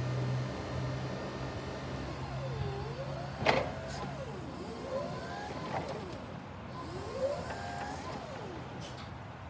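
Still R20-16 electric forklift: a steady electric motor hum for the first few seconds, then a motor whine sweeping up and down in pitch several times as the truck moves, with a sharp click about three and a half seconds in.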